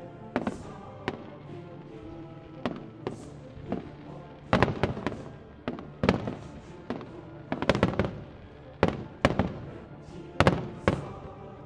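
Aerial firework shells bursting in a string of sharp bangs. A few are scattered at first, then they come in quick clusters from about four seconds in, over music playing underneath.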